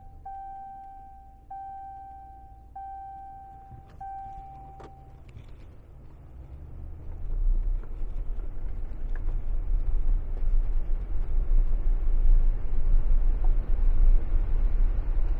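Ram pickup truck's dashboard warning chime, a steady ding repeating about once a second, stopping about five seconds in. Then the low rumble of the truck rolling down a dirt field lane, heard from inside the cab, building up from about seven seconds in.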